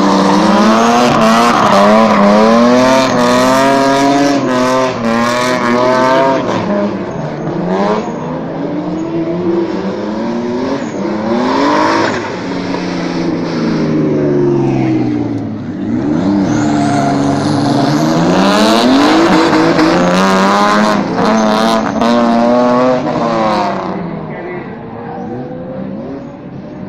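Drift cars sliding with engines revved hard, the pitch repeatedly surging and dropping as the throttle is worked, over the screech of spinning tyres. The noise eases somewhat near the end as the cars move further off.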